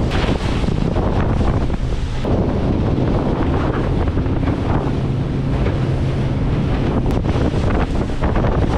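Senator 500 boat running at speed across open water: heavy wind buffeting the microphone over the rush of water along the hull, with a steady low engine hum underneath.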